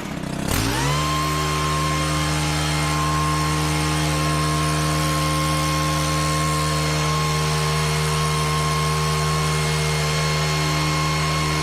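Stihl KM 131R leaf blower's 4-MIX engine revving up about a second in, then held steady at high throttle while blowing, with the blower's rushing air.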